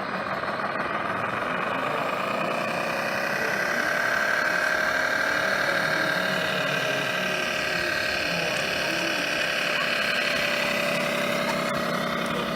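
Radio-controlled model truck or construction machine running, with a steady engine-like drone and motor whine that rises in pitch about two seconds in and then holds.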